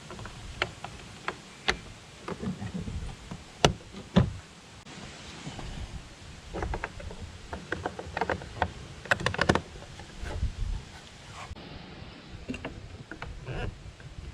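Plastic trim covers being fitted onto a pickup's door: a scattering of sharp, irregular clicks and snaps as the pieces are handled and pressed into place.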